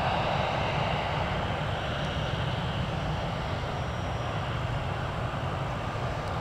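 Airbus A320 jet engines running at taxi power as the airliner rolls past: a steady low rumble with a jet hiss over it.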